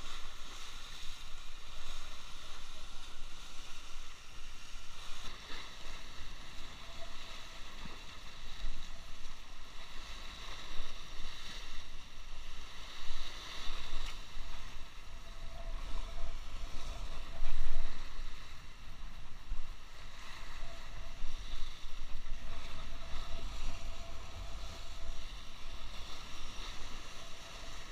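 Sea waves breaking and washing against shoreline rocks, rising and falling unevenly, with wind rumbling on the microphone; one louder surge about two-thirds of the way through.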